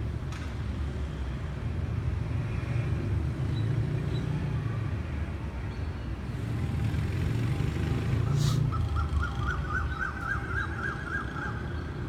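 Low, steady outdoor rumble that swells and eases slowly. About eight seconds in comes a brief click, then a rapid warbling high call that rises slightly over about three seconds.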